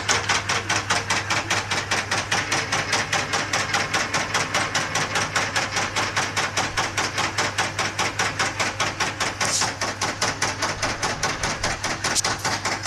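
Homemade scroll saw running: its reciprocating blade mechanism knocks in a rapid, even rhythm, several strokes a second, over a steady motor hum.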